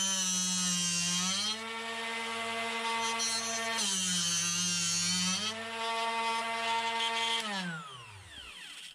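Small electric drill-bit sharpener's motor running. Twice its pitch dips and a grinding hiss rises as the drill bit is ground, once on each of the two flutes. Near the end it is switched off and winds down with a falling pitch.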